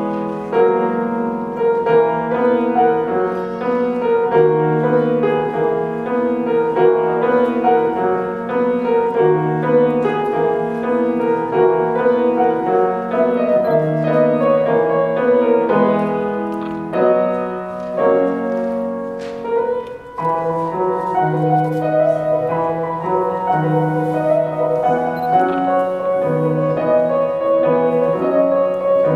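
Solo grand piano played at a recital, a melody running over a repeating pattern of low notes, with a brief break about twenty seconds in.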